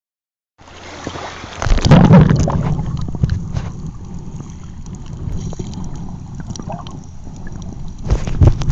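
Wind buffeting the microphone, a steady low rumble with two louder gusts, about two seconds in and near the end.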